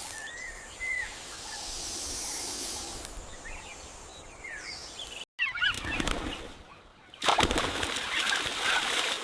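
Wild birds calling in short chirps over a background hiss of natural ambience, with an abrupt break about five seconds in and a denser, noisier stretch from about seven seconds in.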